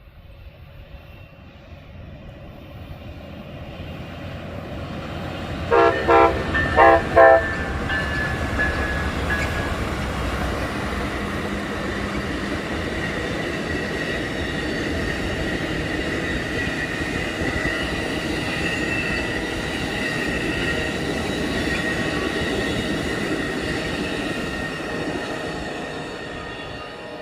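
Amtrak Sunset Limited passenger train approaching and going by. Its locomotive horn sounds a quick run of short blasts about six seconds in. Then comes the steady rumble of the passing train with a high steady tone over it, growing louder at first and fading near the end.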